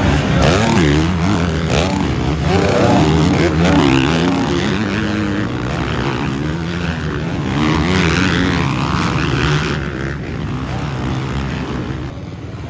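Several motocross dirt bikes racing on the track, their engines revving up and down as the riders shift and throttle through the course. The engines fade a little near the end.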